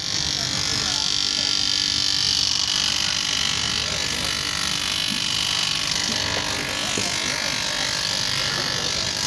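Electric bench grinder running steadily while a shoe sole is held against its sanding wheel, giving a continuous high grinding hiss over the motor's hum.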